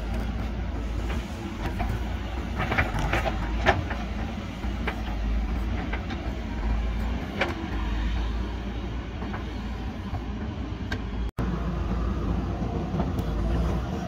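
JCB backhoe loader's diesel engine running steadily under load as the front bucket pushes soil and stones, with several sharp knocks and clatters of rocks against the bucket around the third to fourth second and again midway. The sound drops out for an instant about eleven seconds in.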